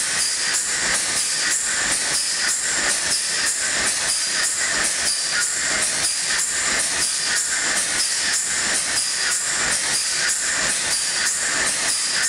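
TDA integral gas engine-compressor running: a steady, rhythmic metallic clatter with hiss, repeating evenly.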